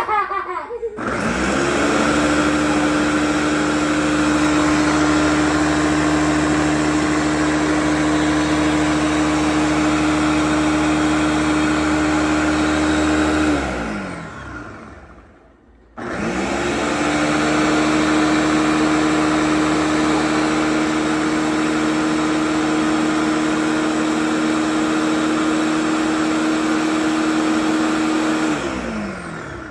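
Ninja Professional Plus 1400-watt blender running its Auto-iQ Ice Crush program on a full pitcher of ice. The motor spins up with a rising whine, runs steadily for about twelve seconds, winds down with a falling pitch, pauses for about two seconds, then spins up again for another twelve-second run and winds down near the end. This start-stop cycling is the programmed ice-crush cycle, and it grinds the ice to snow.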